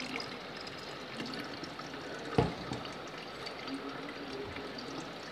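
Thick blended watermelon juice pouring and splashing into a mesh strainer set over a plastic jug, a steady liquid trickle. One sharp knock about two and a half seconds in.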